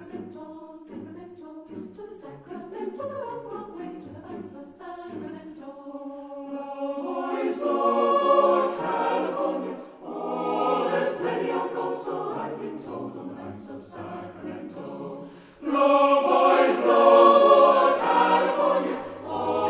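Choir singing, soft at first and swelling into fuller, louder phrases from about six seconds in, with brief breaths between phrases near ten and fifteen seconds.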